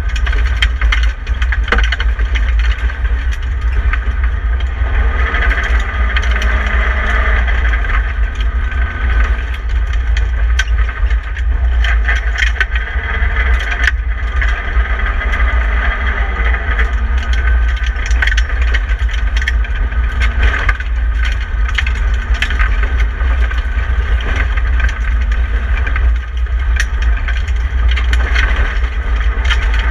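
Inside the cabin of a BMW 318i E30 rally car at speed on a gravel road: the four-cylinder engine running hard with a heavy rumble, its pitch rising and falling with the throttle, over gravel noise from the tyres and many short clicks and rattles of stones and loose parts.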